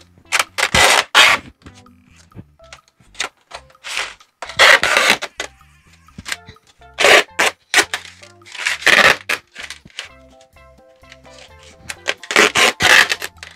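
Masking tape being pulled off the roll in about five loud rips, with crumpled brown paper crinkling as it is wrapped and taped around a pipe for insulation. Quiet background music plays underneath.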